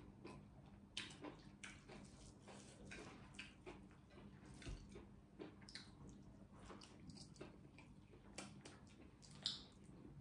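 Faint, wet eating sounds close to the microphone: irregular chewing, lip smacks and sticky clicks as rice is eaten with the fingers, with one louder smack near the end as the fingers are licked.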